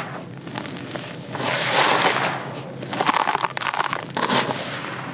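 Dry red dirt crunching and crumbling as hands dig into it and squeeze it in a plastic basin. A swell of gritty rustling comes a little over a second in, then a run of crackles from about three to four and a half seconds in.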